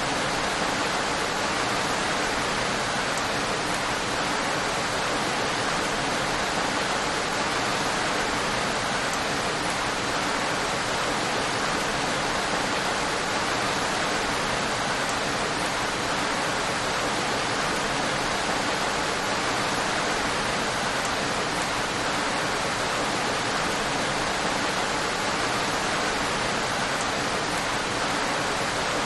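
Steady rain: an even, unbroken hiss of falling rain with no separate drops standing out.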